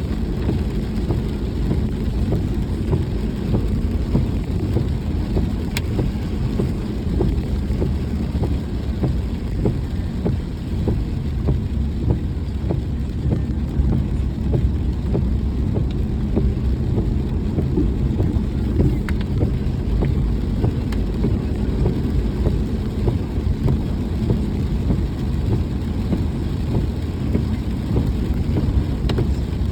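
A vehicle driving in the rain: a steady low rumble of road and engine, with a constant patter of raindrops over it.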